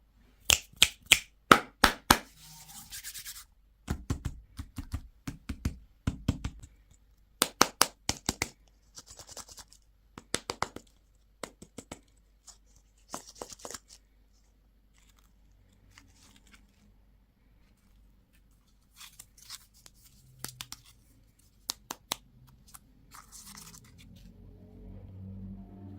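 Hands handling plastic candy and toy packaging: clusters of sharp clicks and taps, with short bursts of crinkling or rustling.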